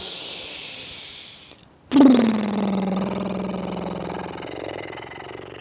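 A woman draws a long breath in through the nose, then blows out through loose lips so they flutter in a long buzzing trill: 'horse lips' breathing. The buzz starts loud about two seconds in and slowly fades.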